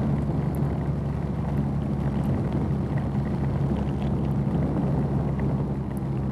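Rain hitting a motorcycle helmet as a steady hiss with scattered small taps, over the even drone of a BMW R nineT's boxer twin engine at cruising speed.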